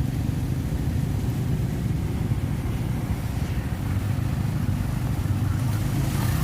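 A motor vehicle's engine running steadily, a low, even rumble with no revving.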